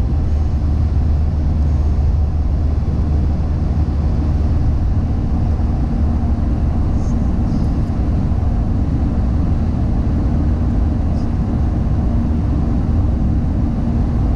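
Car driving at a steady speed: a low, even drone of engine and tyre road noise from inside the cabin, with a faint steady hum.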